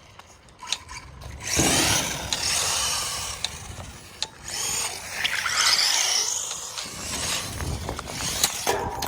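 Electric RC car's motor and drivetrain whining as it speeds up twice, each run swelling and then fading, with a few light clicks and knocks in between.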